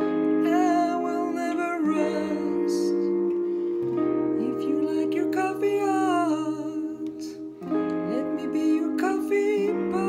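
Fender Telecaster electric guitar played through compressor, overdrive and reverb pedals, ringing out slow held chords that change every two seconds or so.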